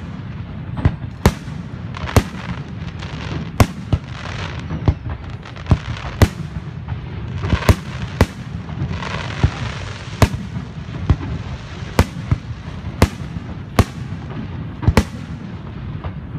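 Aerial fireworks shells bursting, with a sharp bang about once a second and stretches of crackling between them.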